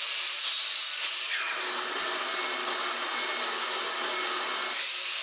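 Kobalt sliding compound miter saw with its vacuum dust-collection hose running, a steady hissing whir.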